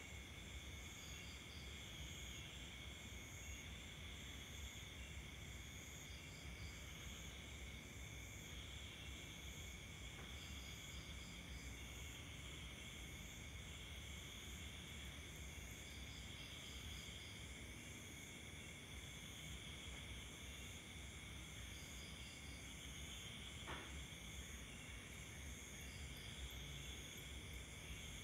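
Faint crickets and other night insects calling: several steady high-pitched trills overlap, while another insect adds short groups of chirps every few seconds.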